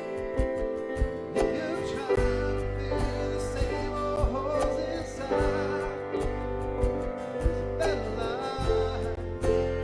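Church praise band playing a worship song: a voice singing a wavering melody over sustained chords, a deep bass line and regular drum strikes.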